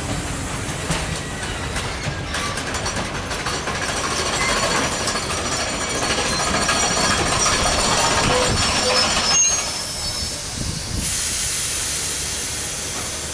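Passenger carriages rolling slowly past on steel rails, wheels rumbling with intermittent high-pitched squeals through the middle. A steady hiss starts near the end.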